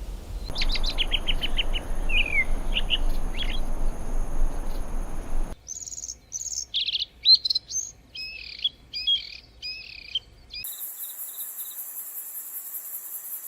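Small songbirds singing in two separate clips: first a rapid trill of repeated notes followed by a few short whistled phrases, then a different bird's string of chattering, chirping notes. After an abrupt cut about ten seconds in, a steady, fast-pulsing high-pitched insect buzz takes over.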